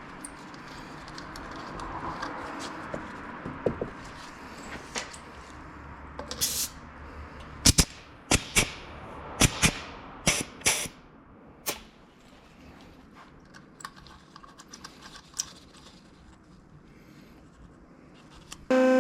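A series of sharp clicks and knocks, bunched together about halfway through, over a faint steady hiss, typical of hand tools being handled during an oil change.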